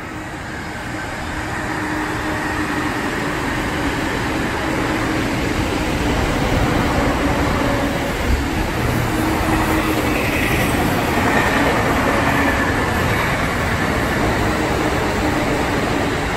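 Electric commuter train running past on the tracks below: a steady rumble of wheels on rail that builds over the first few seconds and stays loud, with faint steady tones over it.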